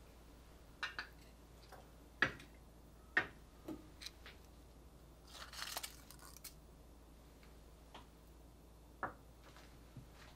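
Scattered light clicks and taps of a small glass bowl against a stainless steel stockpot as dried herbs and bay leaves are tipped in, the loudest two about two and three seconds in. A short dry rustle of the leaves comes a little past halfway.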